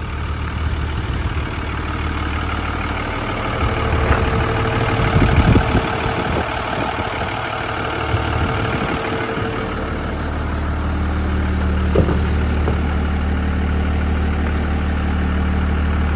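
Diesel engine idling steadily, with a few handling knocks over it.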